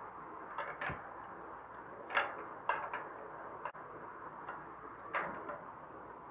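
A few light taps and scrapes against a cake mould as it is greased with ghee, over a faint steady hiss.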